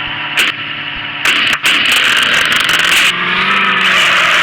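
Porsche car's engine running as it is driven over a rough off-road track, with a loud, rough rushing noise for about two seconds in the middle and a small knock near the start.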